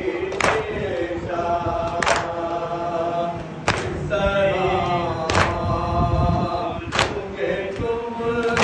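Men chanting a Shia nauha lament in chorus, kept in time by unison matam: open hands striking the chest together about every one and a half seconds, six sharp slaps.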